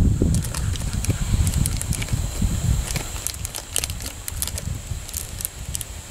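Green plastic child's scissors snipping a foil blind bag open, the foil crinkling: a scatter of small sharp clicks and crackles over a low rumble.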